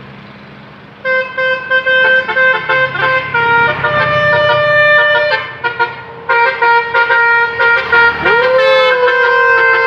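Basuri telolet horn, a multi-trumpet vehicle air horn played by hand as a melody of short and held notes, starting about a second in over a low engine hum. Near the end one note slides up and then sags slowly in pitch.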